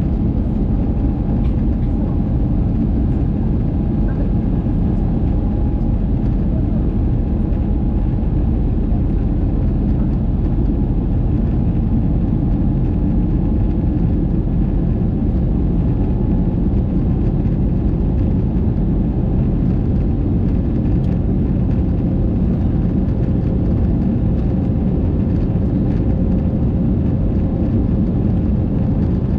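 Steady cabin noise of an Airbus A220 climbing after take-off, heard from a window seat beside the engine: its Pratt & Whitney PW1500G geared turbofans running with a deep, even rumble of engine and airflow, and faint steady tones above it.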